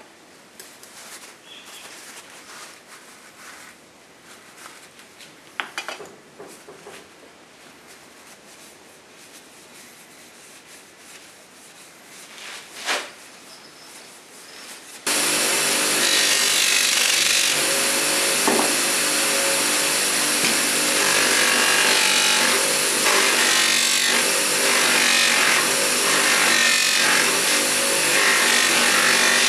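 A rag rubbing polish onto a wooden hammer handle, quiet, with a couple of knocks against the vise. About halfway through, an electric motor spinning a cloth buffing wheel cuts in loud and steady, with the wooden handle pressed against the wheel to buff it.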